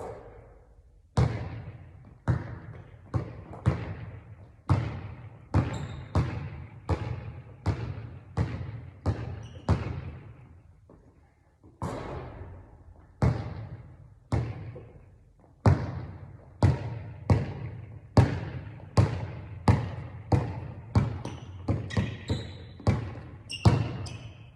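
Basketball being dribbled on a hard court: a steady run of bounces, at times about two a second, each with a short ringing tail, with a brief pause about halfway through.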